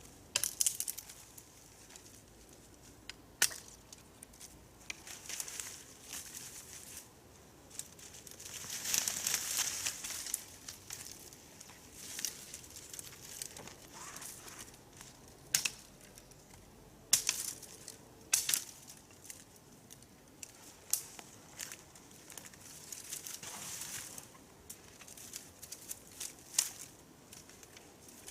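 Dry leaf litter and twigs rustling and crunching, with scattered sharp snaps at irregular moments; a longer stretch of rustling about eight to ten seconds in is the loudest.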